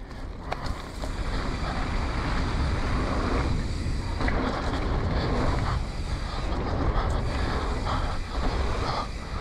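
Wind rushing over a helmet-mounted camera's microphone as a mountain bike rolls fast down a dirt trail, with steady low buffeting and tyre noise on the dirt.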